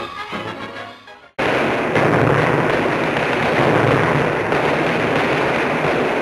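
Brass title music fading out, then after a sudden break a loud, dense, continuous noisy racket starting abruptly and running on without let-up.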